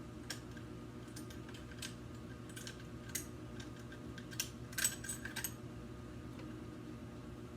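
Scattered light clicks and taps, with a quick cluster of them about five seconds in, over a steady low hum.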